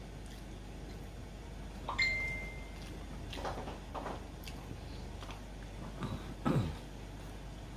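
Tableware and mouth sounds of someone eating by hand at a table: a single clink about two seconds in that rings on briefly as a clear tone, then a few soft knocks and dull thuds, the loudest near the end.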